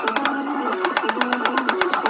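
Background music: a stepping melody over a quick, steady beat.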